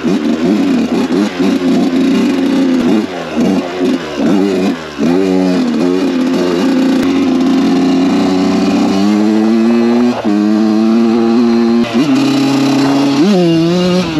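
Kawasaki KX dirt bike engine being ridden hard, revving up and dropping back in quick throttle bursts. In the second half it holds higher revs, with two sudden drops in pitch. Near the end it revs up sharply as the front wheel lifts into a wheelie.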